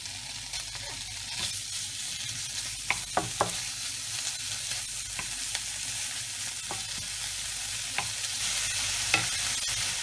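Bacon frying with diced onion and peppers in butter in a nonstick frying pan, a steady sizzle that grows a little louder. A wooden spoon stirs through it, with a few sharp knocks against the pan: three close together about three seconds in, and single ones later.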